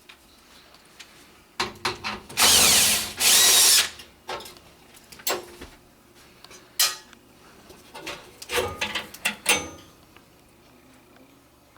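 Cordless drill running twice in short bursts of about a second each, its motor whine bending in pitch, driving or backing out screws on the air handler's panels. Scattered sharp knocks and clicks of tools and parts being handled come before and after.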